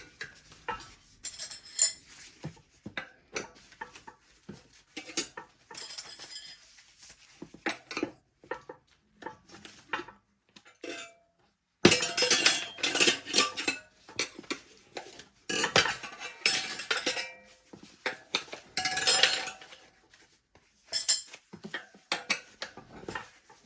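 Steel tire irons clinking and scraping against a dirt bike wheel rim in irregular bursts as the tire bead is levered off, busiest in the second half.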